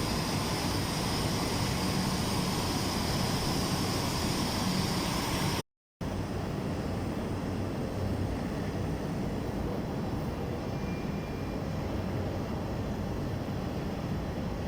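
Steady mechanical noise of industrial welding equipment running. It cuts out completely for a moment about six seconds in, then goes on duller.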